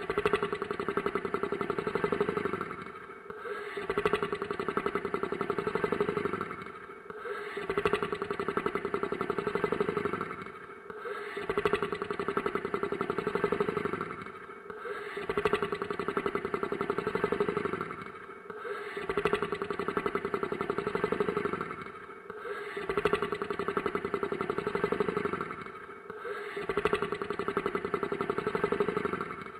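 Monster snoring sound effect: about eight long snoring breaths, one every four seconds or so, each followed by a short quiet gap.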